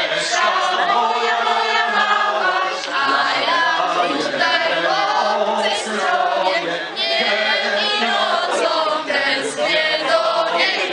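A group of men and women singing a folk song together, unaccompanied.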